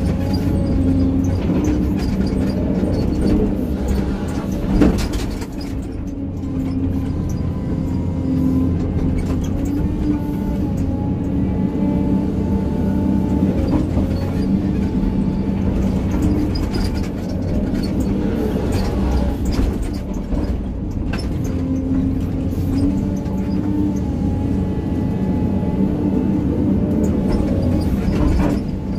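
Hydraulic excavator's diesel engine running steadily under working load, heard from inside the cab, with a hydraulic whine that shifts slightly in pitch as the controls are worked. A single sharp knock about five seconds in.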